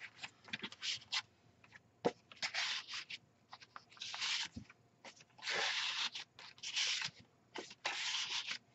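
Paper cards and tags sliding in and out of the pockets of a handmade paper junk journal, rustling and rubbing in short, irregular bursts, with one sharp tick about two seconds in.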